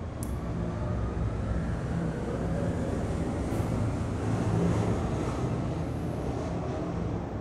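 Airplane passing overhead: a steady low rumble that builds to its loudest about two thirds of the way through, then eases off.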